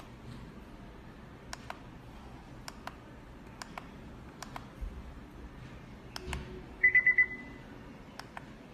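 Push buttons on top of an Abuzhen Bluetooth speaker alarm clock clicking as they are pressed about six times, each press a quick double click, while the alarm time is stepped up. About seven seconds in, the clock gives four quick high beeps, the loudest sound.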